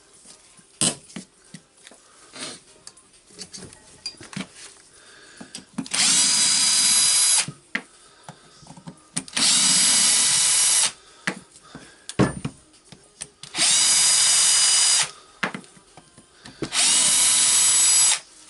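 Power drill-driver with a 4 mm hex bit running in four short bursts of steady whine, each about a second and a half, backing out the four screws of a rotary hammer's gearbox housing. Sharp clicks and knocks of metal parts and tools being handled come between the bursts.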